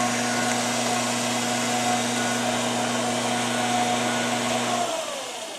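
Electric motor running steadily with a strong hum and hiss, then switched off and winding down to a stop about five seconds in.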